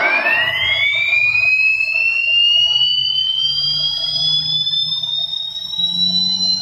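CNC router spindle spinning up: a high whine that climbs quickly in pitch over the first second or so, then keeps rising slowly as the spindle gathers speed.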